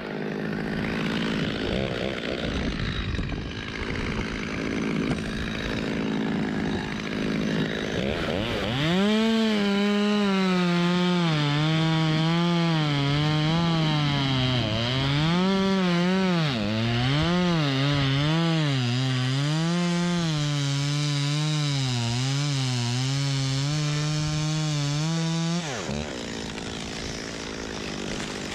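A two-stroke chainsaw cutting through wood, its engine pitch rising and dipping again and again as it bogs under load and is throttled back up, then stopping abruptly a few seconds before the end. Before the saw starts there are several seconds of rough scraping and rustling noise.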